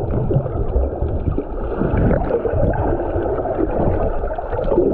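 Sea water heard through a camera held under the surface: muffled gurgling and churning with little high sound in it.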